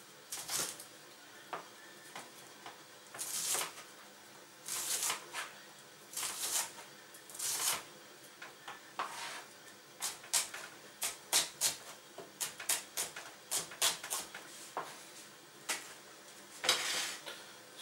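Kitchen knife cutting an onion on a plastic cutting board: a few slower slicing strokes first, then a quick run of chops, about two to three a second, from about ten seconds in. Near the end a longer scrape as the knife gathers the diced onion off the board.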